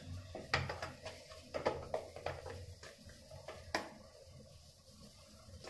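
Hands kneading ragi (finger millet) dough in a stainless steel bowl: irregular soft knocks and scrapes of dough and fingers against the steel, thinning out after about four seconds.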